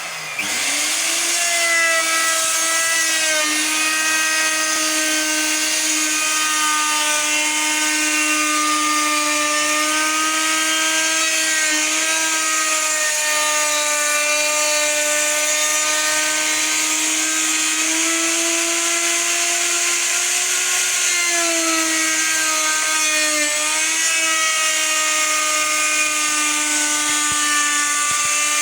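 Large electric wood router spinning up and then running with a steady whine, its pitch dipping slightly now and then as the bit cuts into the edge of a wooden door.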